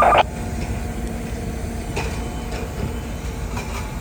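Fire department radio channel between transmissions: a brief burst of static as a transmission cuts off, then a steady low hiss and rumble of radio noise.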